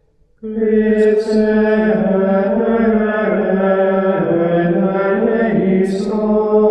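Male plainchant singing: one slow, unaccompanied melodic line that begins about half a second in and carries on without a break, with hissed consonants near the start and again near the end.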